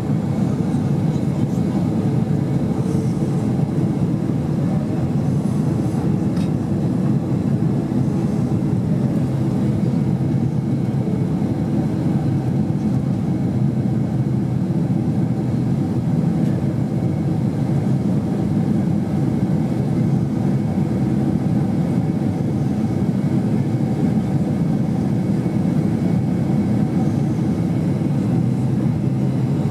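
Steady low drone inside the cabin of a Boeing 767 airliner on descent: its jet engines running and air rushing past the fuselage.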